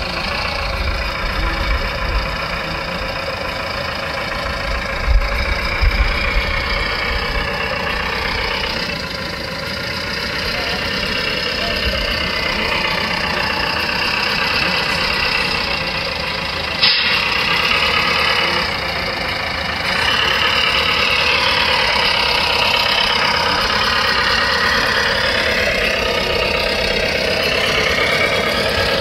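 RC scale model IFA truck running steadily as it crawls, an even engine-like drone with a brief dropout about 17 seconds in and a little louder from about 20 seconds.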